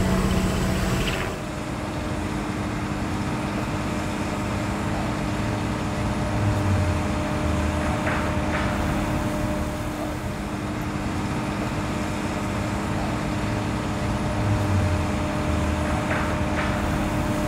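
Heavy construction crane's diesel engine running steadily with a constant hum, swelling briefly in the low end twice as it moves into position for a lift.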